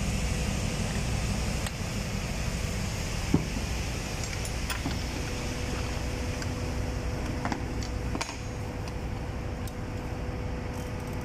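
Steady machinery and ventilation hum, with a few light metallic clicks and clinks of spanners on the diaphragm pump's clamp bolts as the clamps are tightened; the sharpest click comes about three seconds in.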